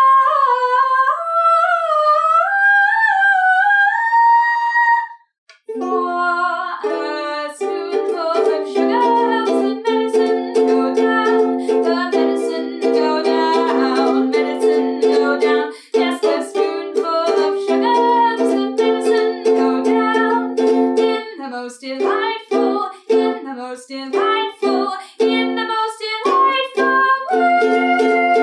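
A woman sings a long, rising wordless 'ah' with vibrato. Then a ukulele is strummed in a brisk rhythm, with a wordless sung melody over it.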